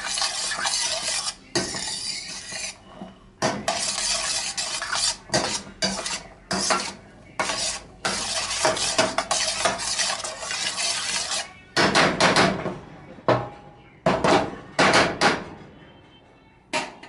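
A utensil stirring and scraping diced onions and green and red peppers around a stainless steel pan in hot oil, in irregular strokes, with the vegetables sizzling. The strokes grow shorter and sparser and stop near the end.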